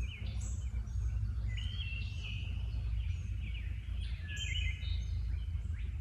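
Birds singing and calling in short, repeated chirping phrases over a steady low rumble.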